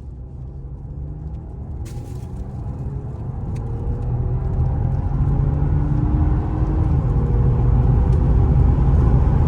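Car driving, a steady low engine and road rumble that grows gradually louder, with a faint engine note gliding in pitch.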